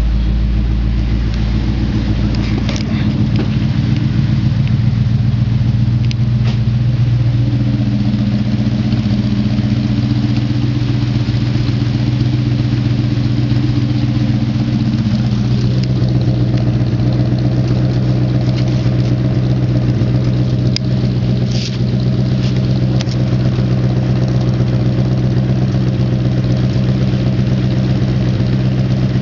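1964 Ford Galaxie engine idling steadily through a new exhaust with glasspack mufflers, a deep, even note whose pitch shifts slightly a few times.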